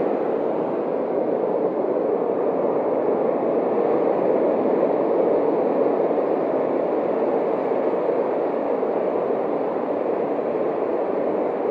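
Steady roar of surf washing onto a beach.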